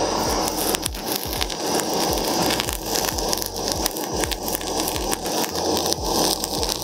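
Handheld butane blowtorch running steadily, its flame hissing with a fast crackle as it is played over seasoned sushi rice.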